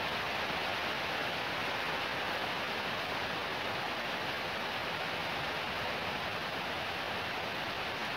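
Fairly heavy rain falling steadily: an even hiss with no single drops or other events standing out.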